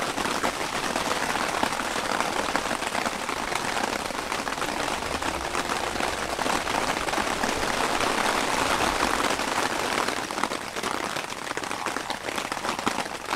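Water poured in a thin, steady stream, first from a kettle into a copper pitcher and then from a gooseneck spout into a mug.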